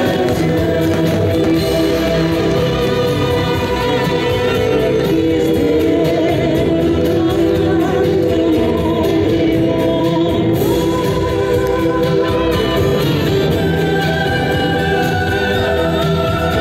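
Music with choral singing held on long notes, steady in loudness throughout.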